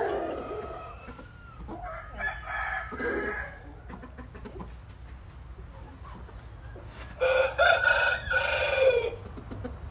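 Young rooster crowing: a shorter call about two seconds in, then a louder crow of about two seconds near the end.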